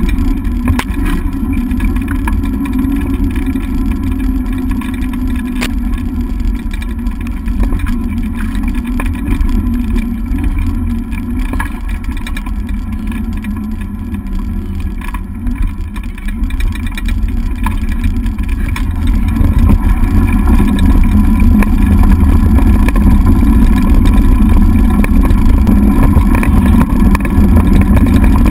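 Dog scooter rolling fast over a dirt trail, with a steady low rumble of wheels and wind on the handlebar-mounted camera's microphone and small rattles from bumps. The rumble grows louder about two-thirds of the way through.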